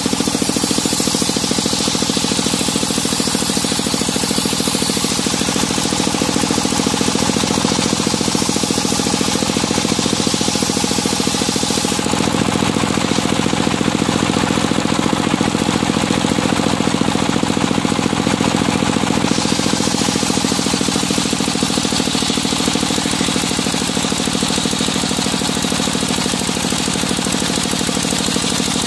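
Stationary engine driving a circular sawmill blade at a steady run, the blade ripping a long plank of medang timber with a continuous high hiss over the engine's low, even chugging. The high hiss thins for several seconds midway, then returns.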